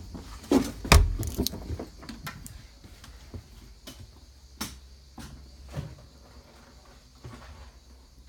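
Irregular knocks and thumps, the loudest about a second in, then fainter scattered clicks.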